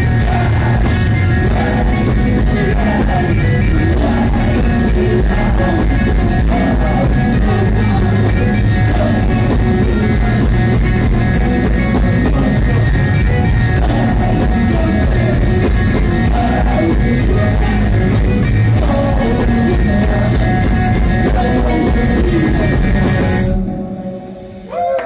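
A live rock band playing loud through a club PA: electric guitars, drum kit and a singer, with the song ending abruptly about a second and a half before the end.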